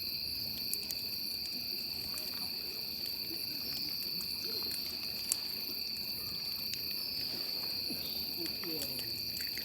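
Crickets chirring in a steady chorus, a continuous high trill, with one faint click about five seconds in.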